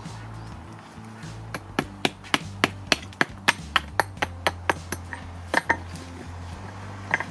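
A hammer knocking small packing stones into a gap in a dry stone wall: sharp metal-on-stone taps in a quick run of about three or four a second, starting about a second and a half in, then a few scattered taps near the end.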